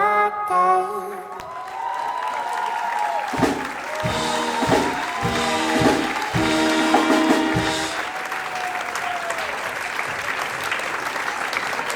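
A recorded dance song ends about a second in, then an audience applauds, with cheering calls and a few louder close claps in the middle.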